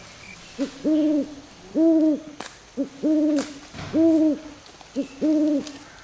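An owl hooting: a steady series of low hoots about one a second, some coming as a short note that leads straight into a longer one.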